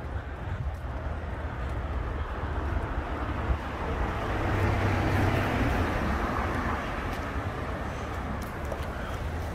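A vehicle going by: a rushing noise that swells to a peak about halfway through and fades again, over a steady low rumble.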